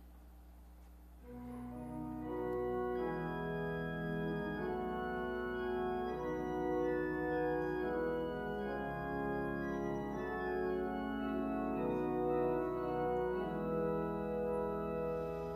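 Organ playing slow, sustained chords, coming in about a second in: the introduction to the sung responsorial psalm.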